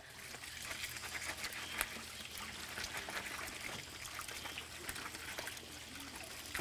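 Water trickling from a tap while freshly dug potatoes are handled and rubbed clean, with many small knocks and scrapes.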